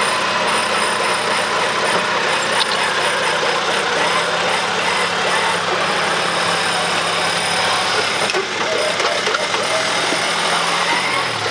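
Modified off-road Jeep Wrangler's engine running steadily at low revs as the vehicle crawls slowly on its winch line, dipping briefly near the end.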